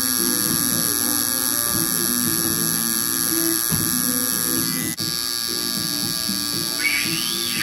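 Tattoo machine buzzing steadily, with a brief dip about five seconds in.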